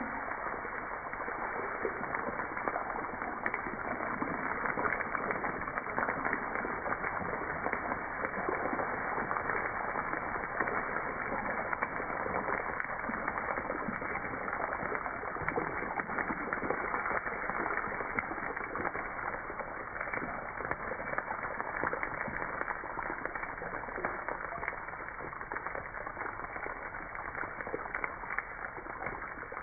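Hot tempering oil (tarka) with cumin seeds and chillies sizzling as it is poured from a pan onto yogurt: a steady hiss dotted with many small crackling pops.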